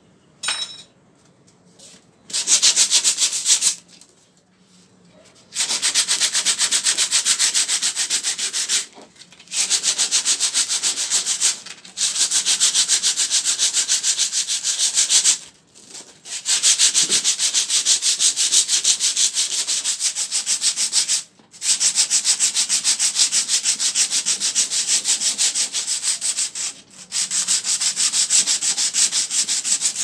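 Sandpaper held flat under the fingers, scrubbed back and forth across a refrigerator's painted top in quick, rhythmic strokes to scuff down the old paint. It comes in long runs broken by a few short pauses.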